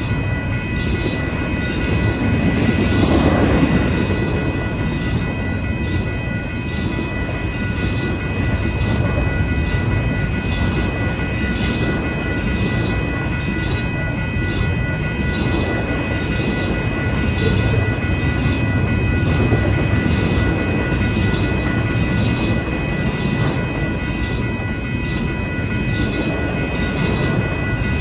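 Union Pacific intermodal train of double-stack container cars rolling past: a steady rumble and clatter of wheels on rail. A grade-crossing bell rings over it.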